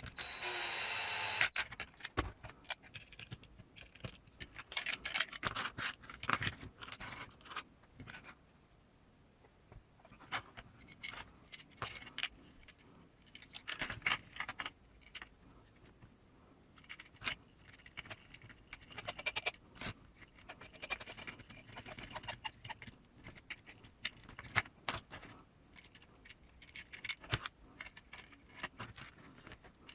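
A cordless electric screwdriver runs for about the first second and a half and stops. Then small metal screws, nuts and parts click, clink and scrape in irregular clusters as an RC crawler's links and skid are assembled by hand.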